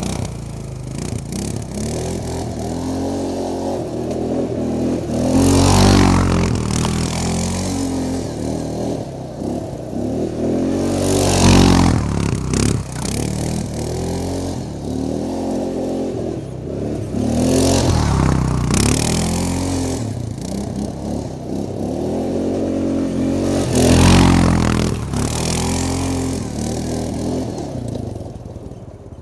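ATV (quad bike) engine revving hard as it laps a dirt track, its note rising and falling again and again as the rider accelerates and backs off. It swells loud as it passes close four times and drops away near the end.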